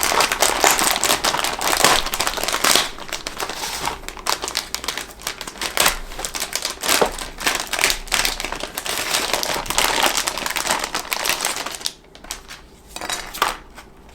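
Model-kit packaging being opened and the parts unpacked: dense crinkling and rustling with small clicks and knocks, easing off about twelve seconds in.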